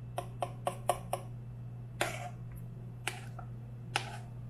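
A quick run of five light taps, about four a second, then three single taps spread about a second apart, over a steady low hum.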